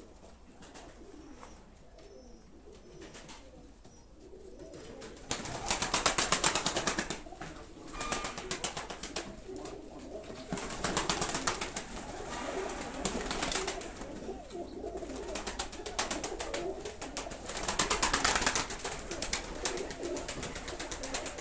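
Domestic pigeons cooing in a loft. Several loud bursts of rapid fluttering rustle come in from about five seconds in and are the loudest sound.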